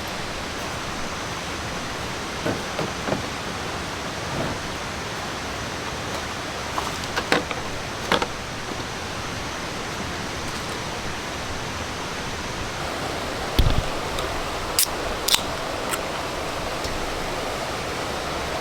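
Steady rushing of a nearby waterfall and stream, with scattered short knocks and clicks over it; the loudest are a low thud about two-thirds in and a few sharp clicks just after.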